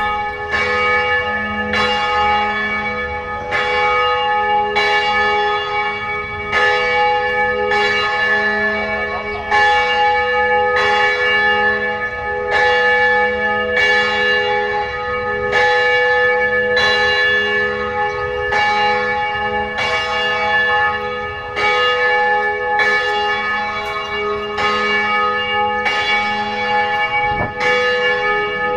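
Church bell ringing steadily, about one stroke a second, each stroke's ringing running on into the next.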